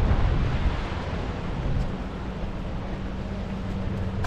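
Tour boat's engine running with a steady low hum, over rushing water and wind on the microphone.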